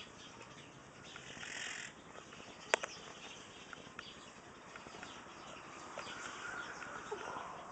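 Tibetan mastiff gnawing on a bone: quiet chewing with a few sharp cracks, the loudest a little under three seconds in.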